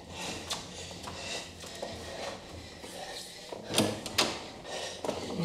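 Interior door being worked open by hand: a string of knocks and clicks from the handle and door, with two sharper knocks about four seconds in.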